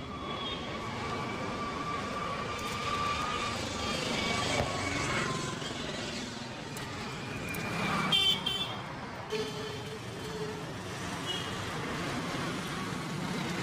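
Steady street traffic noise with vehicle horns sounding in held tones.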